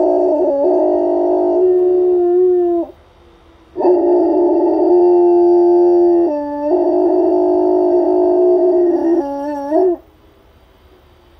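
A dog howling: two long, steady howls about a second apart, each ending on a falling note.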